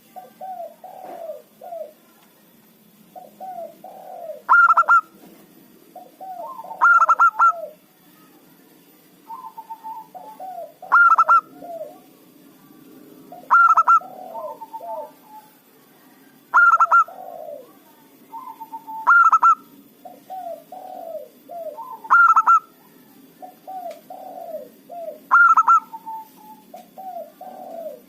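Zebra dove (perkutut) singing its cooing song over and over, a new phrase about every two and a half to three seconds. Each phrase runs through soft rolling coos and ends in a few loud, sharper notes.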